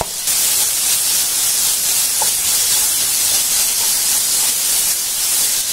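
Hot mustard oil and spices in a kadhai sizzling hard as wet mashed boiled amla is tipped in and stirred with a wooden spatula: a loud steady hiss that jumps up just after the start.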